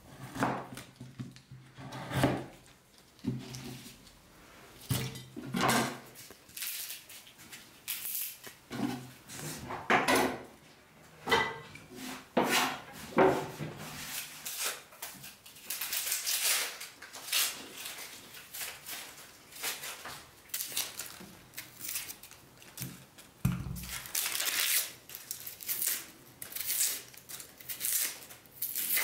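Kitchen dishes and utensils being handled: irregular clinks and knocks, about one or two a second.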